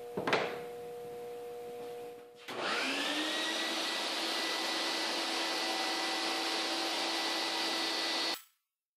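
Benchtop table saw motor switched on about two and a half seconds in, whining up to speed and then running freely at a steady pitch; the sound stops suddenly near the end. Before it there is a faint steady hum and a single knock.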